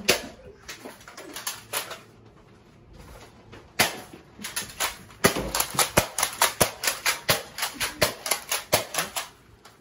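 Nerf blasters being fired and worked: a few scattered sharp clicks, then from about four seconds in a fast run of clicks, about five a second, stopping shortly before the end.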